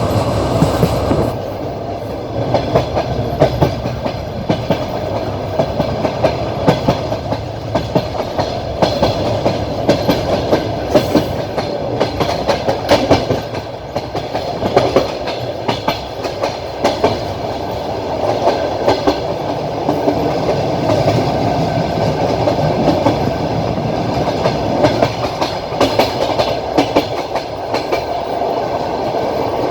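Passenger train running along the track, heard from inside a carriage: a steady rumble with rapid, uneven clacking as the wheels pass over rail joints.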